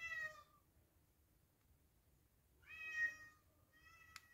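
A domestic cat meowing three times: a short meow at the start, then two longer meows close together later on. A sharp click comes during the last one.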